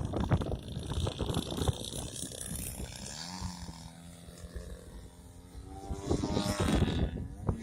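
Wind buffeting the microphone, then the 70cc engine of a Mamba radio-controlled model plane in flight: its pitch rises about three seconds in, holds and fades, then climbs and grows louder again near the end.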